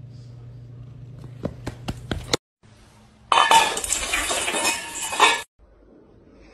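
A few sharp clicks, then a loud clattering rattle for about two seconds of a bowl being pushed at speed across a tiled floor.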